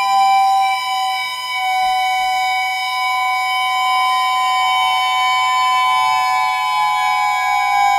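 Experimental drone music: several held tones layered at different pitches, the strongest in the middle range, some of them sliding slowly up or down.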